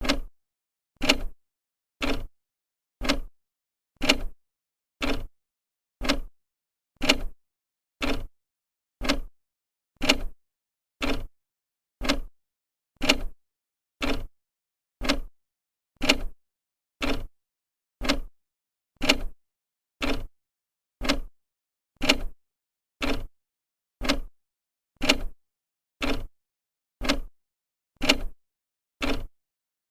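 Old clock's second hand ticking steadily, one sharp tick each second.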